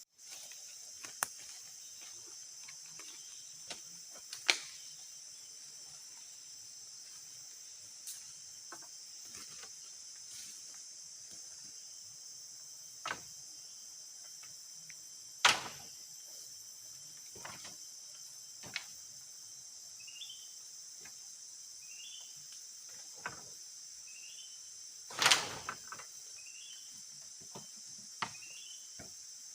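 Steady high-pitched drone of forest insects, crickets or cicadas, running throughout. It is broken by scattered sharp knocks and snaps, the loudest about halfway through and again near the end. In the last third a short chirping call repeats about six times, roughly every second and a half.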